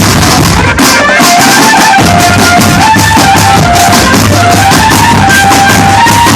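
A drum band playing: marching drums and cymbals keep a dense beat under a melody of held notes that steps up and down in pitch. The recording is very loud, with a brief dip about a second in.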